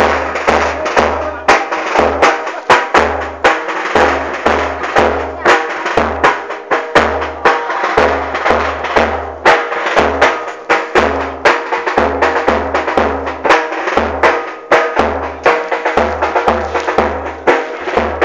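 Music with drums: a deep drum beating repeatedly under many sharp percussive clicks and a melody, with a voice over it.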